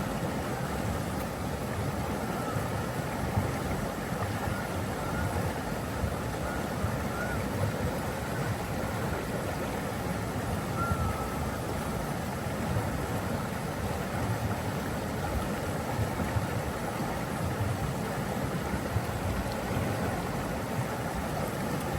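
Flowing water rushing steadily, an unbroken even wash of sound, with a few faint short chirping notes over it in the first half.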